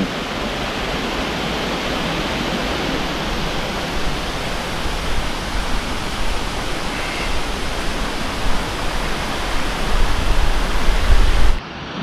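Steady rushing of a fast-flowing rocky stream, with a low rumble growing stronger near the end before the sound cuts off abruptly.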